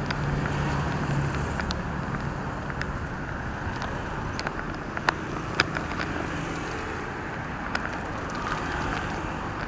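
Road traffic going by: motorbikes and cars, a steady wash of engine and tyre noise, with an engine hum from a passing vehicle in the first second or so. A couple of sharp clicks about halfway through.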